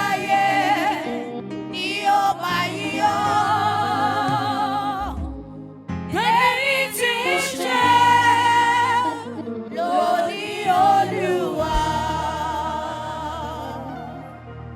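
Gospel singing: long, wavering held vocal notes over a steady low musical accompaniment, with short breaks between phrases.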